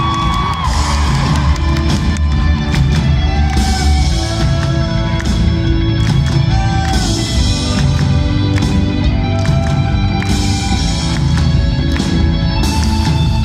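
Live rock band music with drums and held sung or played notes now and then, loud and continuous.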